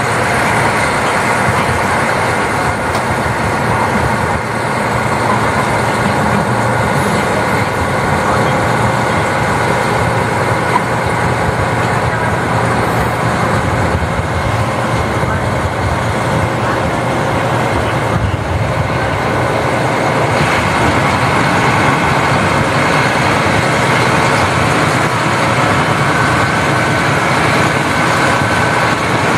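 KiHa 40 diesel railcar running along the line, heard from on board: a steady diesel engine drone mixed with the rumble of the wheels on the rails.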